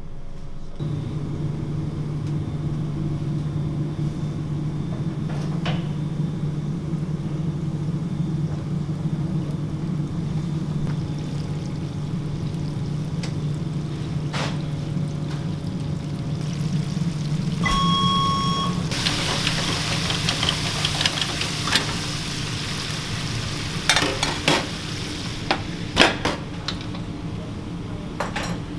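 Floured chicken frying in the hot oil of a Henny Penny pressure fryer: a loud sizzle starts about 19 seconds in. Before it there is a steady low kitchen machine hum and a short electronic beep. Near the end come several sharp metal clanks as the fryer lid and its handles are worked.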